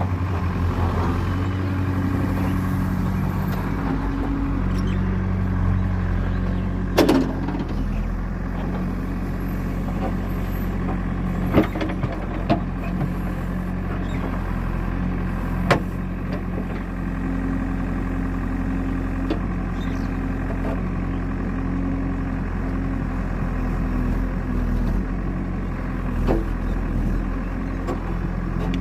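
JCB digging machine's diesel engine running steadily under load while it digs, with a handful of sharp knocks from the working equipment.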